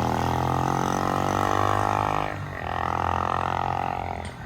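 Vehicle engine running with a steady droning note that drops away briefly just past halfway, as in a gear change, then picks up again.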